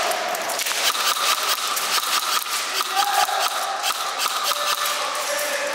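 Airsoft guns firing on the field: a dense run of sharp clicks and cracks, irregular, with a steady whine underneath.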